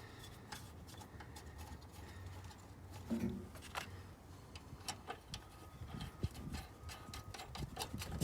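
Faint, irregular metallic clicks and taps with a duller knock about three seconds in: the battery hold-down bracket and its 10 mm bolt being fitted with hand tools.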